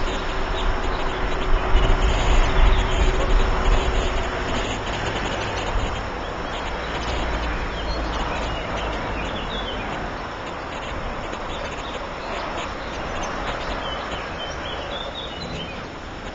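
Steady outdoor background noise: a low rumble, loudest a few seconds in, under an even hiss, with a few faint high chirps.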